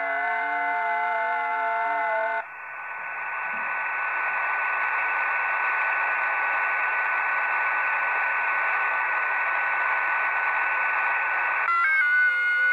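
Shortwave receiver audio from a smartphone SDR tuned in LSB across the 40-metre amateur band. First come several steady whistling tones that shift in pitch as the frequency is changed. About two and a half seconds in they give way to a steady hiss of band noise carrying one constant whistle. Near the end a new set of whistling tones comes in.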